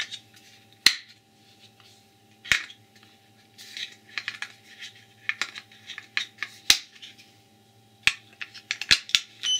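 AAA batteries being handled and pressed into the plastic battery compartment of an Alcosense Zero breathalyser: a series of sharp clicks and small rattles of battery and plastic. At the very end comes a short electronic beep as the unit powers up.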